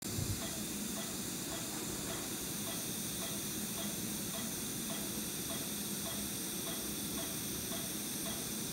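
Steady hiss and low hum of operating-room equipment, with faint ticks about twice a second.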